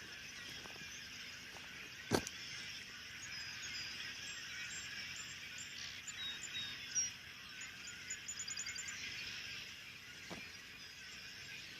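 Small birds chirping: scattered high short calls and a quick rapid trill a little after the middle, over a steady outdoor hiss. One sharp click about two seconds in.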